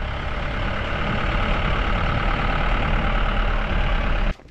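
Steady engine and road noise of a jeep on the move, heard from on board, with a low rumble under a rushing hiss; it cuts off abruptly near the end.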